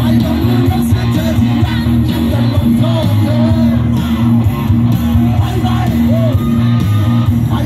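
Thai rock band playing live through a loud PA, with electric guitar and bass under a singing voice.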